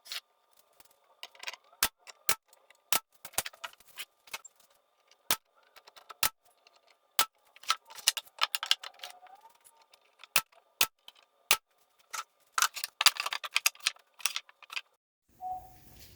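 A string of sharp, irregular clicks and taps from fastening the ledgers of a plywood clamp rack.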